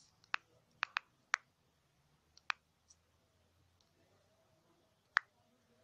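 Sharp, scattered clicks of typing on a smartphone's touchscreen keyboard: a quick run of four in the first second and a half, another about two and a half seconds in, and the loudest about five seconds in.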